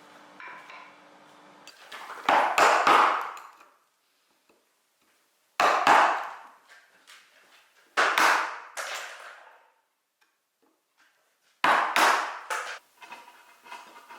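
Wood being struck with a hand tool in four short bursts, a few sharp blows in each, with pauses between.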